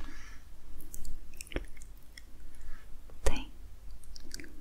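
Close-miked ASMR mouth sounds: scattered soft, wet mouth clicks with faint breathy noises between them, the loudest click a little over three seconds in.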